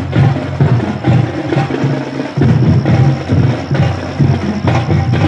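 Drums playing a loud beat, with heavy low hits about twice a second and rattling strokes in between.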